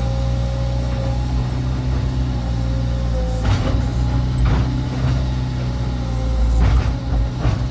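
CAT excavator's diesel engine running steadily under load with a steady whine over it. Four sharp knocks from the machine at work: the first a little after three seconds in, the last near the end.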